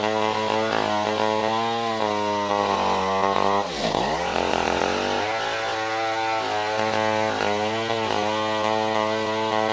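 Stihl 070 two-stroke chainsaw running at high speed under load, cutting lengthwise through a log, its pitch wavering as the chain works. About four seconds in, the engine speed drops sharply and then climbs back.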